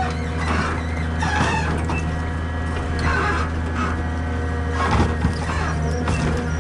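Heavy diesel engine of a forestry machine running steadily, with short squeaks and a few knocks from the machine over it.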